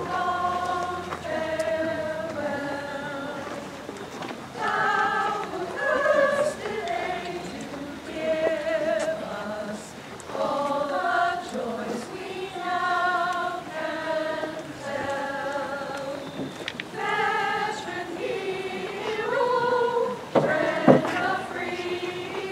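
Community choir singing a hymn-like setting of a poem, held notes with vibrato in short phrases, with a brief knock a little before the end.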